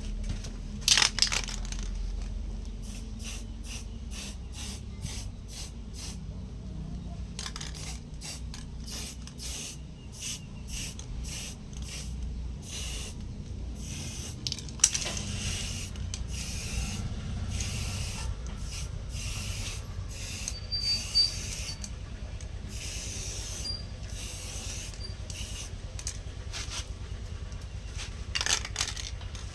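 Homemade electric coconut grater driven by a washing-machine motor, running with a steady low hum while coconut is scraped against it in many short, irregular rasping strokes.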